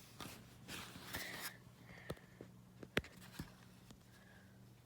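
Faint rustling from objects being handled, then a few sharp clicks, the loudest about three seconds in, over a low steady hum.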